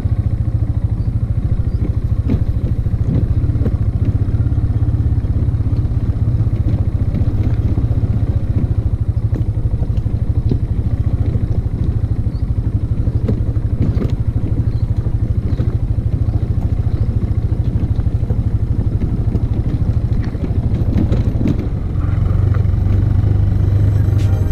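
Four-wheeler (ATV) engine running as the quad drives along a bumpy dirt trail, with frequent small knocks and rattles. The engine dips briefly near the end, then runs louder.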